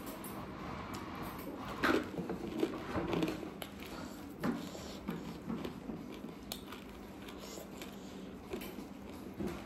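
A person eating rice with buff sukuti and pumpkin gravy: irregular chewing and mouth sounds with small clicks and squishes, the loudest about two seconds in and again around four and a half seconds.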